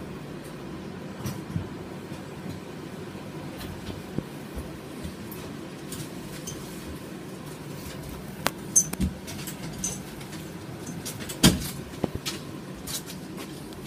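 Tram passenger-compartment sound: a steady low hum with scattered clicks and knocks, a cluster about eight and a half to nine seconds in and the loudest knock about eleven and a half seconds in.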